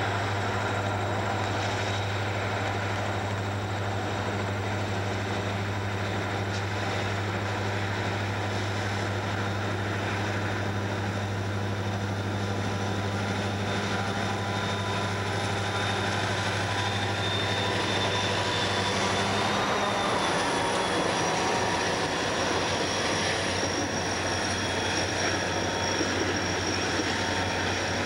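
Diesel locomotives leading a freight train past close by: a steady engine drone with a low hum that drops away about two-thirds of the way through as the lead units go by, with a thin high whine over the rumble of the train.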